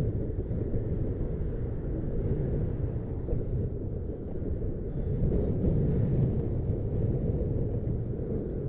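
Wind buffeting the microphone: a steady low rumble that swells and eases slightly.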